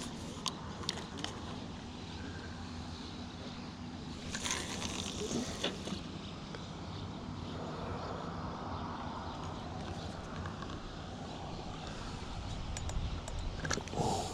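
Steady rushing of water at a dam spillway, with a few scraping and clicking handling sounds about four to six seconds in and again near the end.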